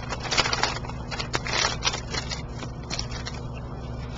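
Brown paper rustling and crinkling as it is handled, in quick irregular bursts that thin out after about two and a half seconds, over a steady low hum.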